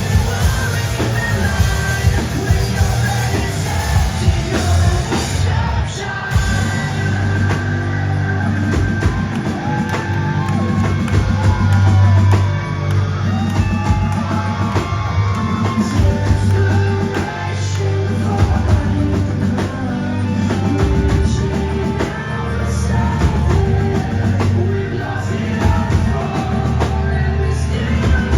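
Live rock band playing loudly: a singer over drum kit and heavy bass.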